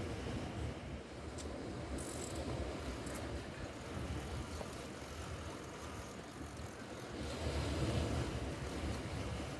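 Wind buffeting the microphone over the wash of sea surf, swelling near the end, with a few faint clicks about two seconds in.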